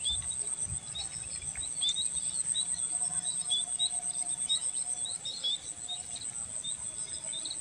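Outdoor insect chorus: a steady high-pitched cricket-like trill with a small bird's short chirps repeating about twice a second over it.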